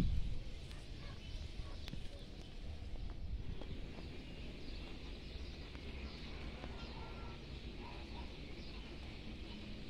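Outdoor ambience: faint bird chirps scattered over a low, steady rumble, with a few small clicks.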